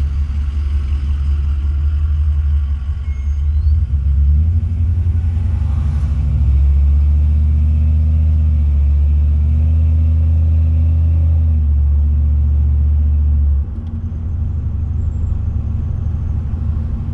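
Dodge pickup with a freshly rebuilt 46RE automatic transmission driving along: a steady low engine and road rumble that grows louder partway through and drops suddenly near the end.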